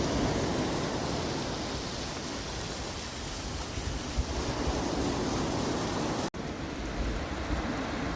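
Steady wash of surf on a wild beach, mixed with low wind rumble on the microphone. The sound cuts out for an instant about six seconds in.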